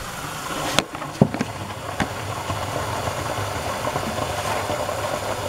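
Kitchen faucet running steadily into a plastic gallon jug, with a few sharp knocks of the jug being handled early on.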